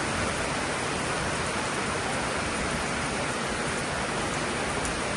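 Heavy rain falling in a steady, even hiss and patter.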